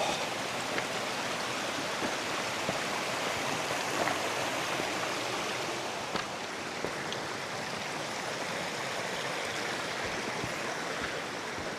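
A small hillside stream flowing steadily, an even rush of running water.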